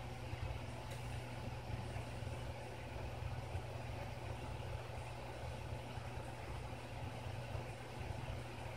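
Hot air rework station blowing steadily onto a freshly placed iPhone 6 Plus touch IC (Meson) to reflow its solder: an even hiss of air over a steady low hum.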